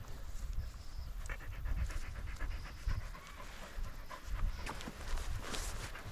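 A dog panting in quick, even breaths, loudest for about a second early in the stretch, over low rumbling handling or wind noise.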